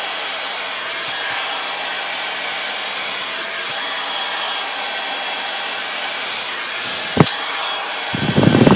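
Handheld hair dryer running steadily, an even rush of air, while long hair is blow-dried with a brush. A sharp click comes about seven seconds in, and a brief, louder burst of handling noise comes just before the end.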